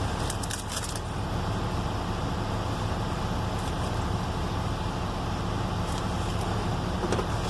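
Cordless drill motor running steadily with a low hum, boring a 3/8-inch hole into stainless steel sheet.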